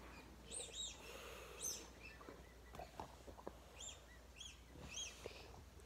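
A small bird chirping faintly: several short, high notes that rise and fall, some in quick pairs, with a few light clicks between.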